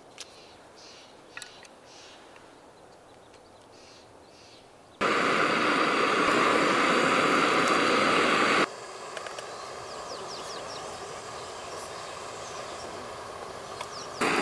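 Sizzling in a hot frying pan: it starts suddenly about five seconds in, loud and steady for a few seconds, then drops abruptly to a quieter sizzle with small crackles, and swells again at the very end.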